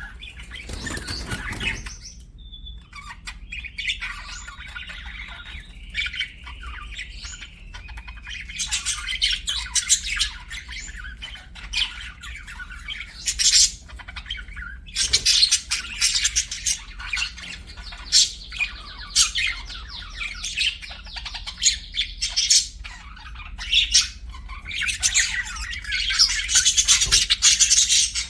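Budgerigars chirping, warbling and squawking in a continuous chatter of short calls, with a brief rustling noise in the first couple of seconds.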